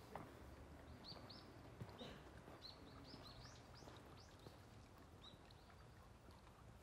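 Birds chirping faintly: a run of short, high chirps, repeated between about one and five seconds in, over near silence.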